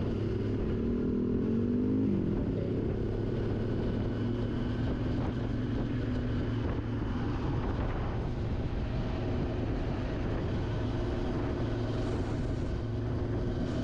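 Motorcycle engine running at cruising speed with road and wind noise, picked up on the moving bike. The engine note shifts for a moment in the first couple of seconds, then holds steady.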